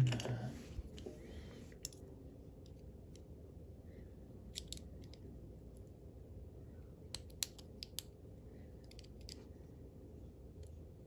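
Scattered light metallic clicks and taps from a small steel padlock and its brass core being worked on by hand with tools, coming in small clusters a few seconds apart.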